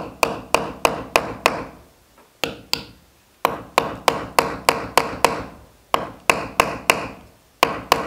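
Hammer knocking a nail into a plastered wall, to hang a plaque. The blows come in quick runs of about three a second with short pauses between runs, and each blow has a brief metallic ring.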